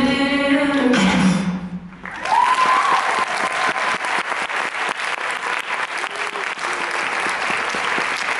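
A recorded dance track ends on a held chord that fades out, then an audience bursts into steady applause about two seconds in, with a single high cheer as the clapping starts.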